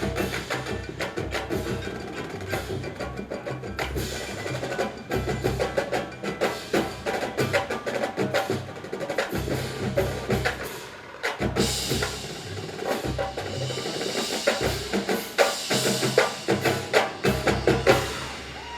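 Drum corps percussion section playing a loud, busy passage: snare and tenor strokes, pitched bass drums stepping between notes, and mallet keyboards. A high, cymbal-like wash sits over the last several seconds, and the passage stops just before the end.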